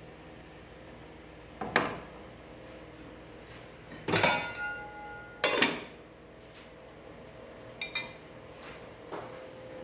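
Metal cookware clanking: a frying pan and aluminium pot lids being set down and handled, about five separate knocks. The loudest come about four and five and a half seconds in, the first of these ringing briefly.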